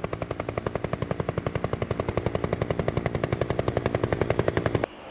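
Toy helicopter's built-in electronic sound effect, a rapid mechanical chopping at about a dozen beats a second over a steady buzzing tone. It cuts off suddenly near the end.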